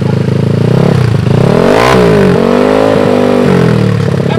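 Old Honda Scoopy scooter's single-cylinder engine, bored up to 130 cc, revved through an open SKR racing exhaust with no dB killer: the note rises and falls in blips, loudest about two seconds in, then settles to a steadier run.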